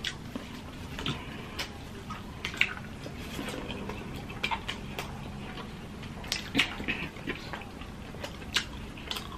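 Close-up eating sounds: wet chewing, lip smacks and mouth clicks from people eating with their hands, in scattered short sharp bursts over a low steady background.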